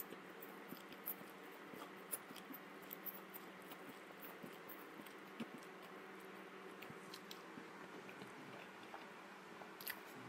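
Faint mouth sounds of a person eating spicy instant noodles: soft slurps and chewing, with many small wet clicks scattered throughout over a steady low hum.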